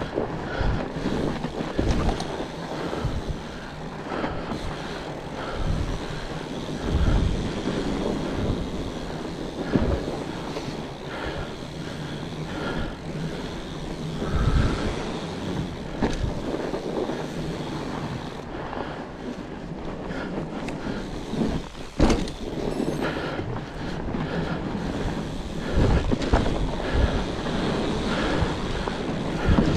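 Fat bike being ridden, with wind buffeting the camera microphone and the tyres rolling over the trail, jolting the bike with uneven low thumps. One sharp knock comes about three quarters of the way through.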